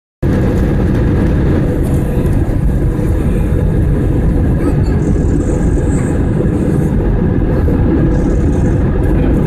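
IndiGo Airbus A320 airliner on its landing approach: a steady, loud rumble of jet engines and rushing air, with a faint constant hum.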